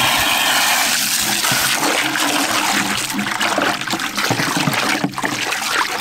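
Garden hose running full into a plastic bucket: a steady rush of water splashing into it, filling it quickly. The rush turns more broken and splashy over the second half as the water level rises.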